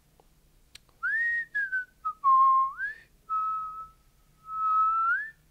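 A person whistling a tune by mouth: a few short phrases of held notes that slide up and down in pitch, with brief gaps between them.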